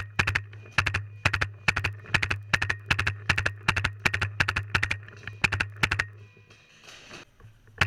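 Paintball marker firing in rapid strings of sharp pops, about four shots a second and often in quick pairs, stopping about six seconds in, over a low steady hum.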